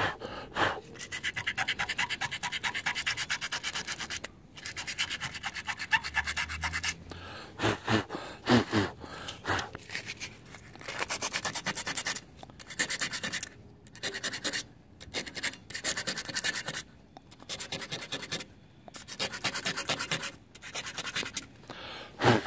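150-grit sandpaper rubbed by hand on a scooter's painted frame tube, in quick back-and-forth strokes in several spells with short pauses. It is scuffing off the edges of chipped paint so the touch-up enamel will stick.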